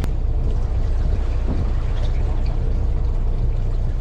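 Fishing boat's engine running steadily, a low rumble with no breaks.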